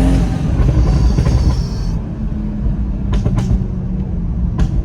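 Toyota Supra MK5's turbocharged engine under way, its note climbing into the first moment and then running steadily. A hiss over the first two seconds cuts off suddenly, and a few sharp clicks come later.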